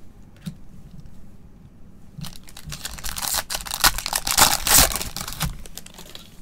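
A Panini Mosaic soccer card pack's wrapper crinkling and tearing as gloved hands pull it open, loudest in the middle, after a couple of seconds of quieter card handling.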